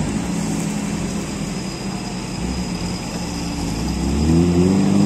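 Off-road 4x4 engines running under load during a tow-rope recovery from a muddy rut, revving up with a rising pitch from about three and a half seconds in.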